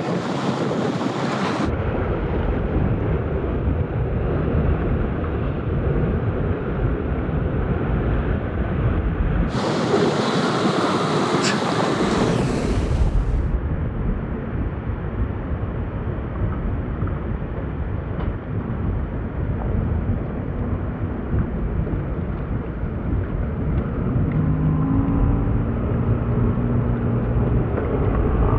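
Wind rumbling on the microphone over open ocean and surf, with sudden changes in tone where the footage cuts between takes. A faint motor hum, from the idling jet skis, comes in near the end.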